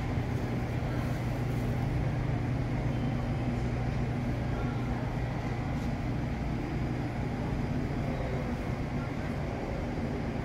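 Railway station platform ambience: a steady low hum with an even background rumble.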